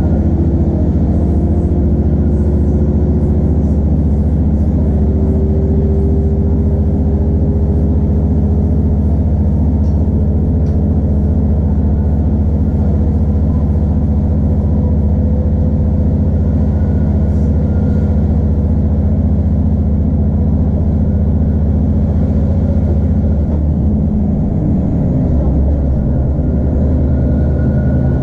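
Class 2600 diesel multiple unit's engine under power, heard from inside the carriage as the train pulls away, with a whine rising in pitch over the first several seconds and a steady low drone after. About 24 seconds in the engine note changes and settles at a new pitch.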